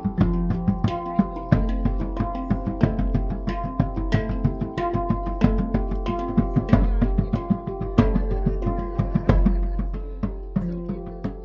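Acoustic instrumental music with no singing: sustained pitched notes under a quick, busy run of struck notes and hand percussion.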